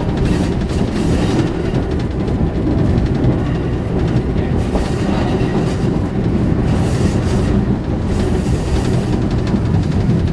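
Vintage tram No. 1074 running along the track, heard from its open-windowed driver's cab: a steady rumble and rattle of wheels on rails. A few short stretches of higher hiss come and go.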